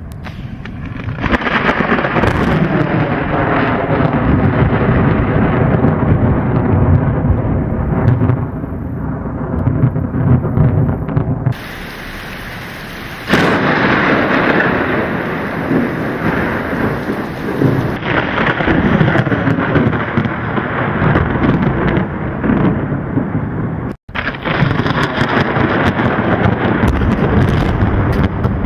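Thunderstorm sound effect: loud rolling thunder rumbling with rain, spliced together from several recordings. The sound changes abruptly a little over 11 s in and again about 13 s in, and cuts out for an instant about 24 s in.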